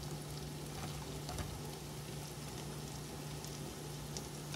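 Chopped red onions frying in butter in a pan, a steady gentle sizzle with scattered faint crackles.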